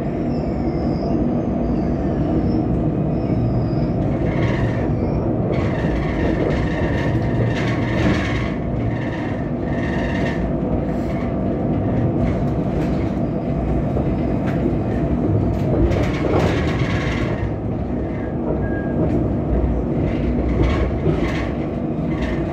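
Steady rumble of a tram running along its rails, heard from inside the car, with a faint high whine for the first few seconds.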